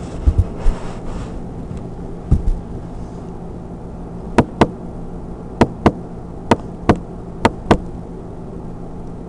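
Handling noise: a few soft thumps and knocks in the first couple of seconds, then four pairs of sharp clicks, each pair about a quarter second apart, over a steady low hum.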